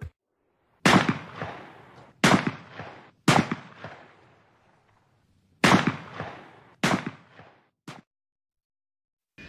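Shotgun firing six shots at uneven intervals, each report trailing off in an echo; the last is cut short.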